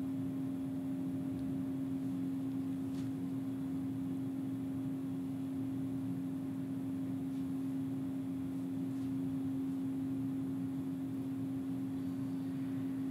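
Steady mechanical hum with one constant low tone, and a couple of faint clicks about three and nine seconds in.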